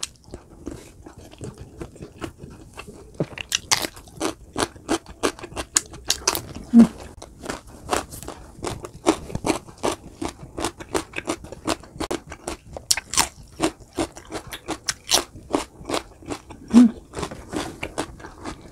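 Close-miked chewing and biting of roasted chicken, a rapid run of moist crunching clicks several times a second.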